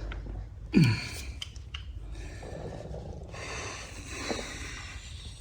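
A man's short vocal sound, a gasp or groan falling in pitch, about a second in, followed by a quieter steady hiss.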